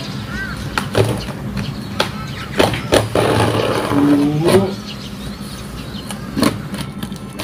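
A cardboard shipping box being opened with a pointed tester screwdriver: several sharp knocks and taps on the box, with a scratchy stretch of tape and cardboard being scraped or torn around the middle.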